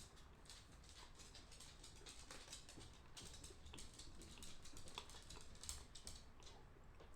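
Dry edible clay being broken up into small pieces, a quiet, rapid run of fine crackles and clicks that is denser in the middle and later part.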